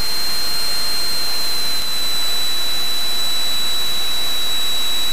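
Steady cockpit noise of a Cessna 172 in flight, engine and airflow heard as an even, loud hiss, with a thin high whine held steady throughout.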